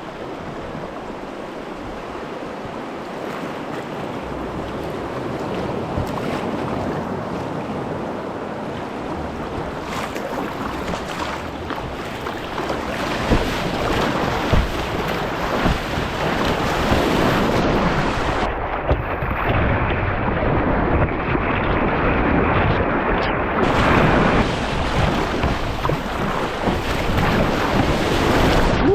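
Rushing river water around a kayak, growing steadily louder as the boat moves into faster current, with a few sharper splashes in the second half.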